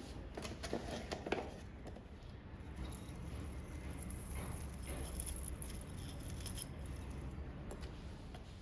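Light rustling and small clicks of Christmas decorations being handled and packed away, with a cluster of sharper clicks in the first two seconds, over a steady low hum.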